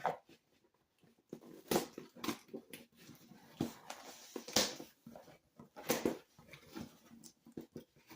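Cardboard and plastic toy packaging being handled and opened: irregular rustling, scraping and sharp clicks, with a few louder rustles around two, four and a half and six seconds in.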